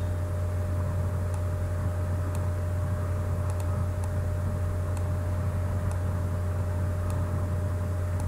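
Steady low electrical hum with a thin constant higher tone and a light hiss, the background noise of the recording setup. Faint short mouse clicks come about once a second as shapes are picked up and dragged.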